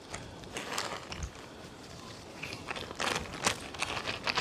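Small ion-exchange resin beads pouring from a plastic bag into a pop-bottle funnel and filter canister: a scatter of fine ticks that thickens into a denser, louder trickle about three seconds in.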